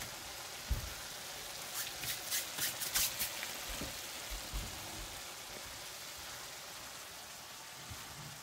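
Ground turkey with freshly added onion and garlic sizzling in a skillet on medium heat: a steady frying hiss. A low thump comes just under a second in, and a quick run of sharp crackles follows about two to three seconds in.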